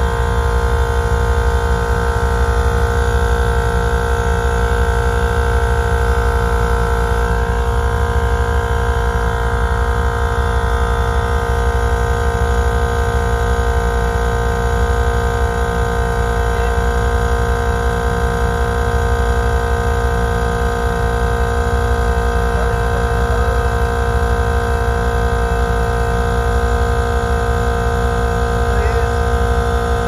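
Vevor 12-volt train-horn kit air compressor running steadily, a constant hum over a rapid low pulsing, as it fills its air tank and the pressure climbs.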